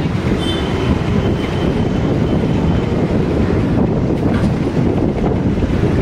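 A city bus in motion, heard from inside: a steady rumble of engine and road noise.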